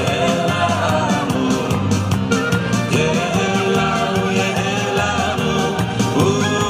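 Music with singing and a steady beat.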